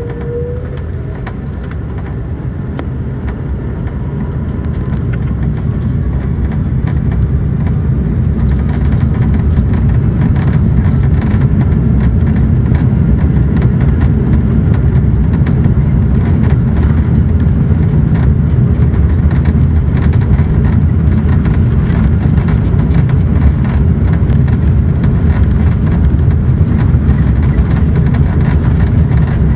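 Airbus A330-300 airliner's Rolls-Royce Trent 700 engines spooling up for takeoff. A rising whine at the start gives way to a loud low rumble that builds over the first ten seconds and then holds steady. Many short clicks and knocks run through it.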